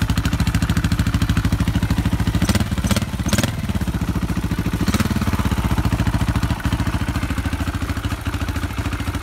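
2006 KTM 450 EXC's single-cylinder four-stroke engine idling with a fast, even thump, revved briefly about three seconds in and again about five seconds in. It is being run just after a valve adjustment to check that the valves are good.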